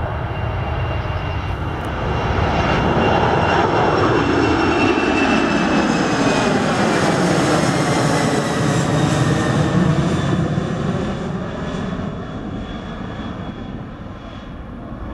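Twin-engine Boeing 767 airliner climbing out after take-off and passing overhead: a loud jet roar that swells, holds for several seconds, then fades as the aircraft flies away. Over the roar, a high engine whine slides slowly down in pitch.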